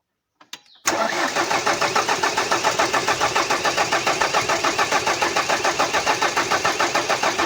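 Starter cranking a 2007 Ford Ranger's 2.5-litre diesel engine, starting about a second in with a fast, even beat of compression strokes. The engine does not catch, because no diesel reaches the injectors: a fuel-delivery problem at the diesel pump.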